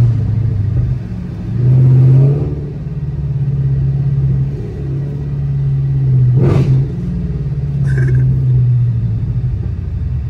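Dodge Charger SRT8's HEMI V8, fitted with aftermarket headers, running steadily with a deep, loud exhaust drone as the car drives slowly. The drone swells briefly about two seconds in.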